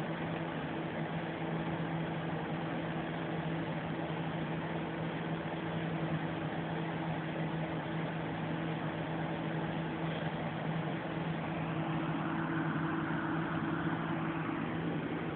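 A small motor running with a steady hum over a constant hiss; a higher rushing sound rises over it for a few seconds near the end.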